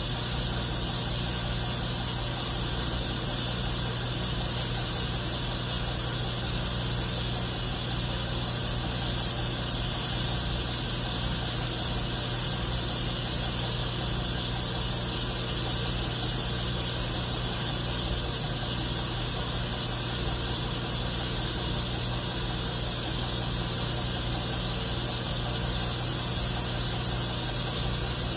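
Highland Park 24-inch U Model lapidary slab saw running wet, with a steady motor hum under an even high hiss from the blade and coolant. The sound is smooth and unchanging, as a finely tuned slab saw should sound.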